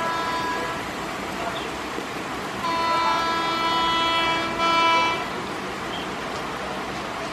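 Electric locomotive horn sounding a multi-note chord: a blast ending in the first second, then a longer blast about three seconds in that swells just before it stops. Under it, the steady hiss of heavy rain and a train running past.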